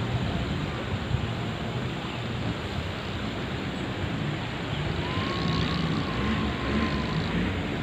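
Off-road jeep's engine running steadily while driving, under a dense rush of noise. A faint thin whine comes in about five seconds in.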